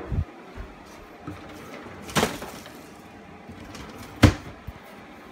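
Two sharp knocks about two seconds apart, the second the louder, followed by a smaller knock, over faint handling noise.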